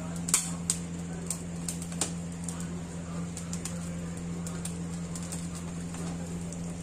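Corn cob roasting directly over a gas burner flame, its kernels crackling with scattered sharp clicks over the steady hiss of the burner and a low hum.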